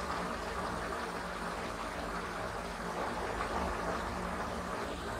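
Steady background hiss with a low hum and no distinct events: room tone.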